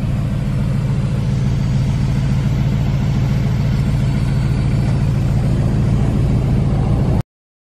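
A 2017 Porsche Panamera Turbo's 4.0-litre twin-turbo V8 idling steadily with a deep, even sound, cutting off suddenly near the end.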